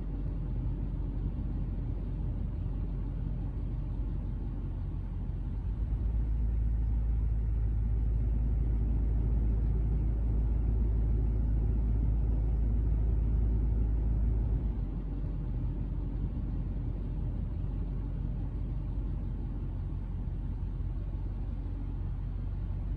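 A steady, low rumble with no clear tone, heaviest in the bass; it grows louder about six seconds in and drops back about fifteen seconds in.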